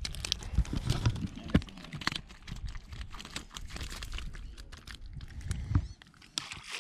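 Collapsible wire-mesh fish keeper basket rattling and clinking as it is handled, a quick irregular clatter with a few dull thumps.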